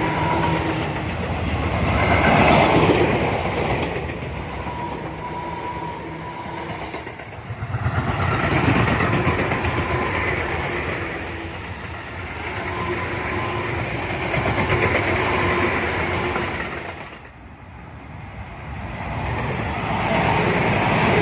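Tobu Tojo Line electric trains passing, with wheel-on-rail rumble and clatter under a steady electric motor whine. The sound swells and fades in several waves, dropping away suddenly about three-quarters of the way through before another train comes in.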